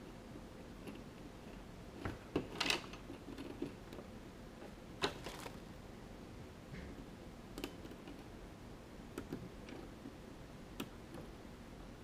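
Light, scattered metallic clicks and taps from a small Schlage lever-lock cylinder and its threaded cap being handled, as the cap's thread is worked to get it started. A short cluster of clicks comes about two seconds in and another about five seconds in, with occasional single ticks after.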